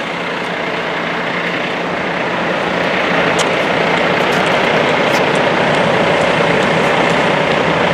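Steady street traffic noise with vehicle engines running, growing gradually louder.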